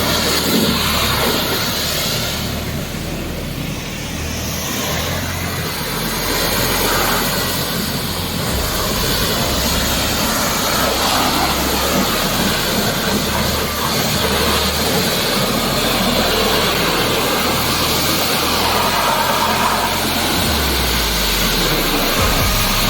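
Pressure washer spraying water in a steady, loud hiss, with the machine's motor humming low underneath.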